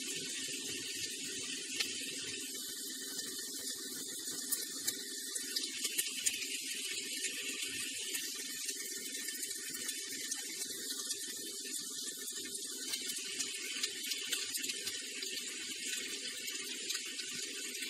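Mixed vegetables (broccoli, green beans, bell peppers, mushrooms) sizzling steadily in oil in a nonstick frying pan, with faint scattered crackles, as their moisture cooks off.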